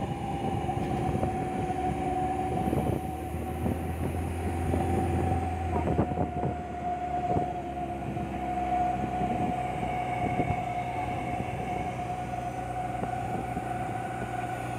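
A vehicle's engine and road noise while driving, with a steady high whine throughout. The low engine note shifts to a new pitch a few times as the engine works.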